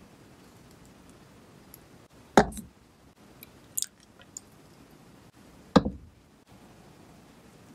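Sauce bottles set down on a wooden cutting board: two solid knocks about three and a half seconds apart, the second a plastic ketchup squeeze bottle landing upside down on its cap. There are a few light clicks between them.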